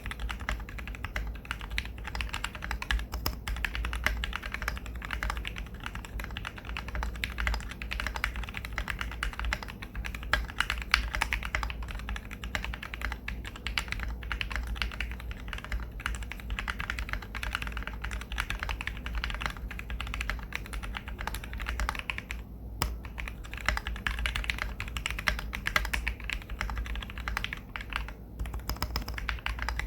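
Typing on a custom 60% mechanical keyboard with an aluminium Tofu60 case, a polycarbonate plate, PBT keycaps and Krytox-lubed Gateron KS-3x47 Black linear switches. A steady run of key clacks, with short pauses about 23 and 28 seconds in.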